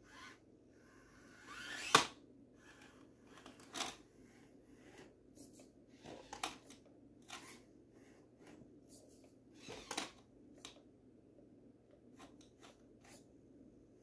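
Axial SCX24 micro rock crawler clambering over stones: scattered clicks, knocks and scrapes of its tyres and plastic body against the rock, the loudest a sharp knock about two seconds in, with smaller ones near four, six and ten seconds.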